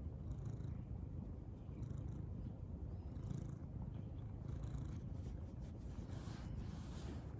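Ginger tabby cat purring with a low steady rumble while being stroked on the head, close to the microphone.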